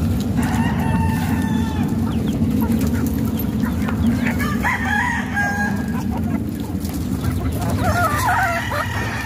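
Gamefowl roosters crowing three times, about a second in, around five seconds and near the end, with hens clucking, over a steady low rumble.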